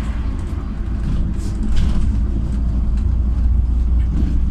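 Cabin sound of a LiAZ 5292.67 city bus running on compressed natural gas: a steady low rumble from its YaMZ-53624 engine and running gear, with a few light rattles.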